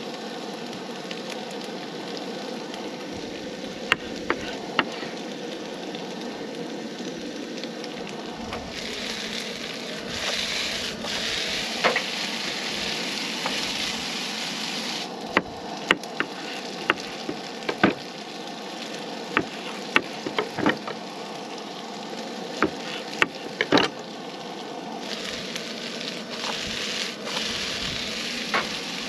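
Food frying in a skillet on a propane camp stove, a steady sizzle that swells twice while the pan is stirred and moved. Sharp knocks of a knife on a wooden cutting board and of a utensil on the pan come now and then.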